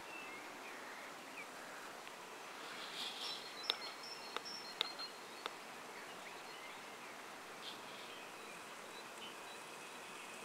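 Outdoor ambience with faint birdsong: short whistled notes and sharp chirps, busiest between about three and five and a half seconds in, over a steady soft hiss.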